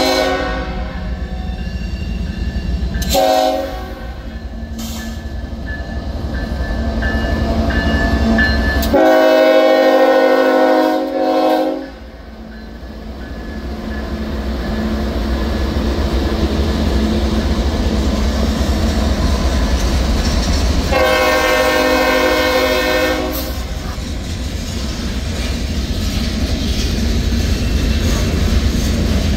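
Norfolk Southern diesel freight locomotive sounding its multi-chime horn for a grade crossing: the end of one blast just at the start, a short blast about three seconds in, a long blast from about nine to twelve seconds, and another long one about twenty-one seconds in. Between the blasts a steady low rumble of the locomotive going by, then freight cars rolling over the rail joints.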